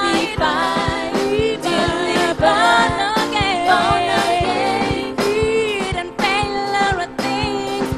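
Gospel praise song sung by a group of singers over a band, with a steady drum beat under the voices.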